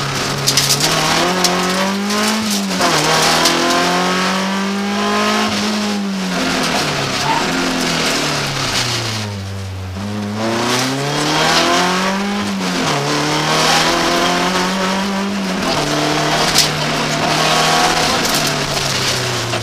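BMW 318 iS rally car's four-cylinder engine heard from inside the cabin, pulling hard through the gears with the revs climbing and dropping at each gear change. About halfway through, the revs fall low as the car slows for a tight bend, then it accelerates away again.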